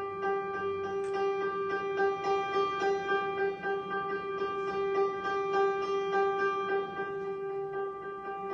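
Solo piano playing a repeated-note study: one note is struck over and over, about three times a second, and rings on between strikes.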